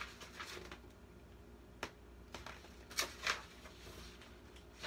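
Soft paper rustles and flicks as the pages of a picture book are turned and handled: one short flick near two seconds in, then two sharper ones around three seconds.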